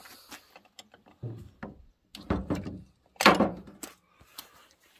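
Small clicks and a few louder knocks as a screwdriver and metal bumper spikes are handled against a chainsaw's body while the spikes are being fitted. The loudest knocks come about two and three seconds in.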